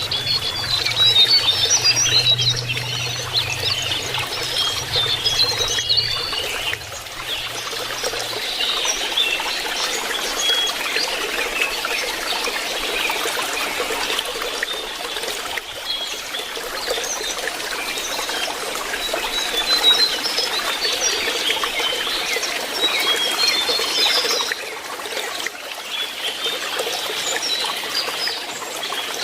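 Water trickling steadily, with many short high chirping notes of a lesser shortwing scattered over it throughout.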